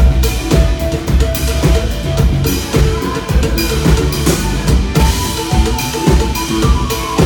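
A live band playing, with a drum kit keeping a steady beat of kick and snare under keyboard and bass.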